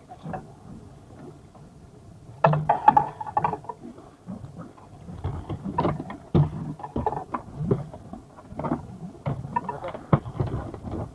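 Irregular knocks, thumps and rattles, coming in loose clusters, loudest about two and a half seconds in and again in the second half.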